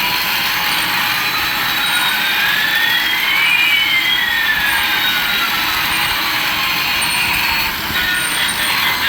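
Electronic sound effect from a battery-powered toy's speaker: a steady, loud hiss with one whine rising and another falling, the two crossing about three and a half seconds in.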